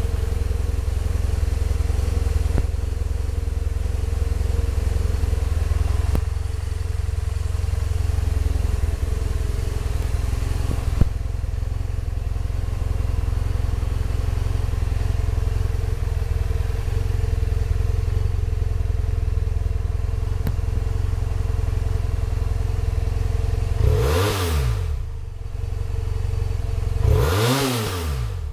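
BMW F800S's 798 cc parallel-twin engine idling steadily, then revved twice near the end, each blip rising and falling in pitch.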